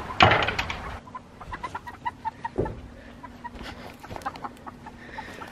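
Chickens clucking in short repeated notes, several a second. There is a brief loud noise just after the start.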